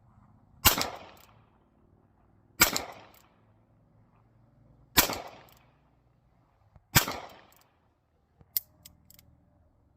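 Smith & Wesson K-38 Masterpiece revolver firing four shots of .38 Special wadcutter about two seconds apart in a timed rapid-fire string, each shot followed by a short echo. Near the end, a few light clicks, typical of the revolver being dry-fired after the string.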